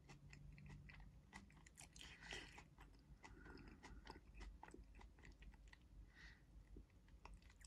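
Near silence, with faint scattered clicks and a couple of soft rustles.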